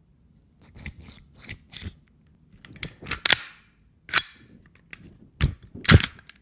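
Sharp plastic-and-metal clicks and snaps from a gas airsoft Glock 19 Gen 5 pistol being handled, about ten in an irregular run. A couple are followed by a short hiss, and the loudest snap comes near the end.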